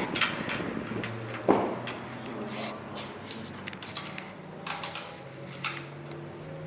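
Low engine hum holding a few steady pitches, with several sharp knocks and clicks over it, the loudest about one and a half seconds in.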